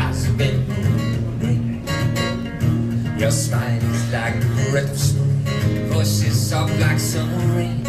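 Live pop music: a strummed acoustic guitar and a voice singing over steady low notes.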